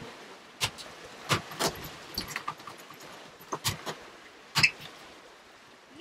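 Several sharp, irregularly spaced knocks and metallic clinks on a sailing yacht's deck while a freshly hooked yellowfin tuna is brought aboard and handled, over a low hiss of wind and sea.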